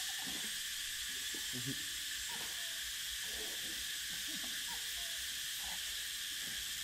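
Cicadas droning in a steady, high, unbroken chorus.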